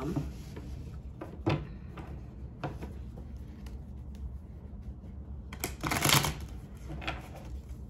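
A tarot deck being shuffled by hand: a few light card taps, then a longer rustle of shuffling about six seconds in.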